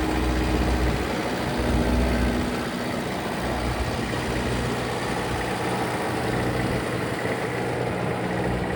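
Bobcat S185 skid steer loader's four-cylinder Kubota diesel engine running, with a heavier low throb in the first couple of seconds before settling to a steady run.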